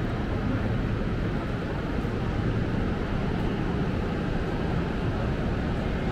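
Steady low rumble of a busy railway station's ambience under the train shed, with no distinct events.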